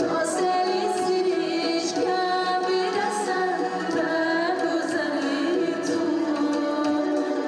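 Woman singing a song through a microphone, holding long wavering notes, over instrumental accompaniment with occasional drum strikes.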